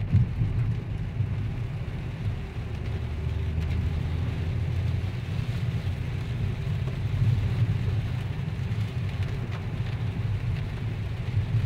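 Car cabin noise while driving in heavy rain: a steady low rumble of the car running on a wet road, with an even hiss of rain and tyre spray.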